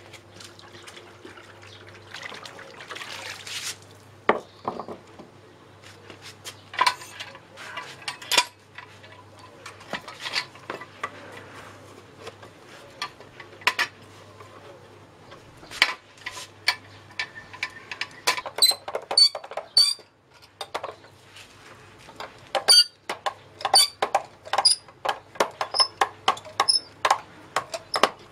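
Clanks and clinks of a small steel frame tool being handled and adjusted on paving stones, scattered at first and coming thick and fast in the second half, many with a short metallic ring.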